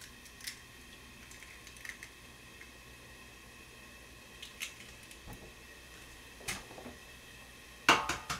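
Light taps and clicks of eggs being cracked into a small square frying pan, then a louder clatter of several quick knocks of kitchenware near the end.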